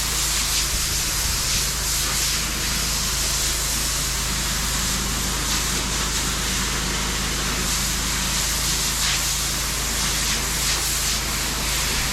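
Pressure washer wand spraying a steady hissing jet of soap solution across screens and walls through the soap tip, over a steady low hum from the machine.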